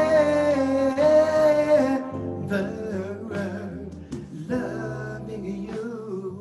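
A man singing a wordless, gliding vocal line over a slow R&B ballad backing track of sustained chords. The voice is loudest in the first two seconds, then comes back in shorter phrases.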